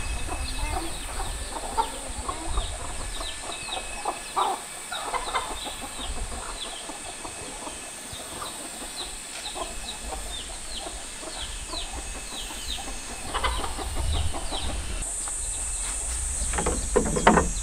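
Free-ranging farmyard chickens clucking, with many short high peeps over a steady high-pitched drone; a louder call comes near the end.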